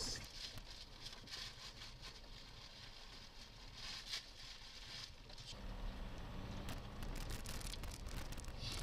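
Road noise inside a Mahindra XUV's cabin on a rough gravel mountain track: a low rumble from engine and tyres with scattered clicks and rattles of stones and gravel under the wheels. The rumble grows louder a little over halfway through.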